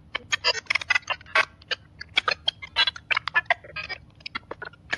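Digital glitch sound effects: a rapid, irregular run of short clicks and chirps, several a second, with a thinner stretch around four seconds in and a last cluster near the end.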